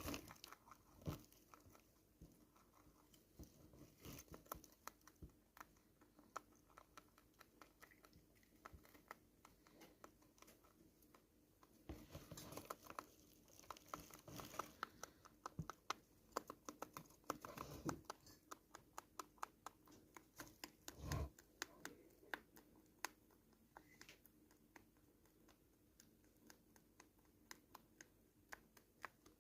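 A rabbit chewing: quiet, rapid crunching clicks that run on steadily, with a few louder knocks scattered through.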